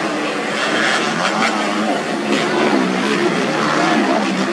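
Engines of several standard-class underbone (bebek) race motorcycles revving hard. Their pitches rise and fall and overlap as the bikes pass close by.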